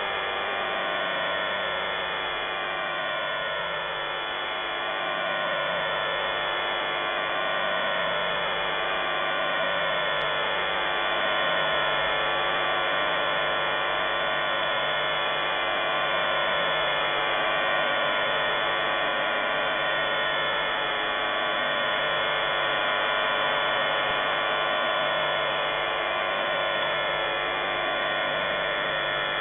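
Unidentified shortwave signal on 5211 kHz, possibly jamming, heard through an SDR receiver's single-sideband audio. It is a steady, dense buzz of many tones, with falling pitch sweeps at the start and again near the end.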